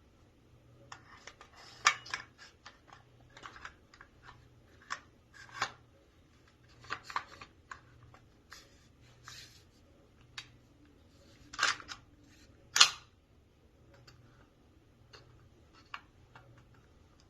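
Benelli Nova 12-gauge pump-action shotgun being handled and put together: an irregular run of clicks and knocks from its parts, with two sharp, loud knocks a second apart about twelve seconds in.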